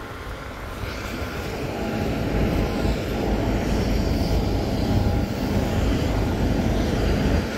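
Jet airliner noise: a steady rumble with a faint whine over it, growing louder over the first couple of seconds and then holding.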